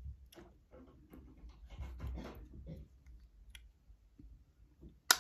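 Handling of an AirPods 3 charging case and earbuds: faint rubbing and small clicks as fingers pull an earbud from its magnetic slot, then one sharp click near the end.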